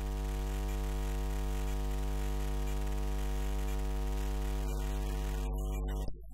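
Steady electrical mains hum, a low constant hum with a stack of overtones and no change in pitch, cutting off suddenly near the end.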